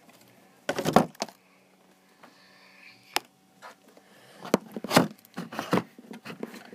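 Hands handling a plastic action figure and its pieces: scattered clicks, taps and short rustles, a cluster about a second in, a sharp single click near the middle and a busier run of them in the last couple of seconds, over a faint steady hum.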